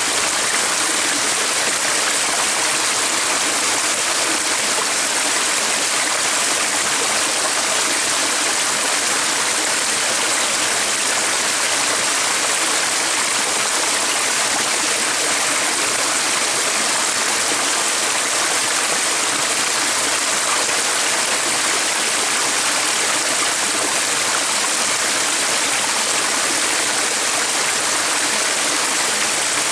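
Stream water flowing, a steady, unbroken rush.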